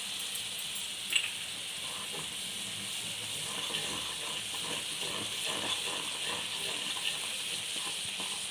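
Palm-sugar syrup with ginger, honey and lemon bubbling and sizzling steadily in a pan as it cooks down toward candy stage. A single light knock comes about a second in.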